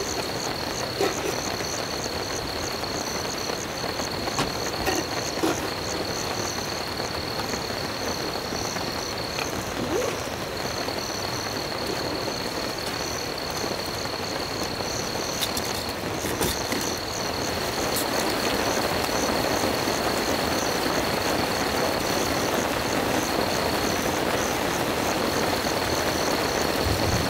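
Steady rain hiss at a forest campsite at night, with a night chorus over it: a steady high trill and a pulsing high chirp. The rain grows louder about two-thirds of the way in, with a few small clicks and knocks.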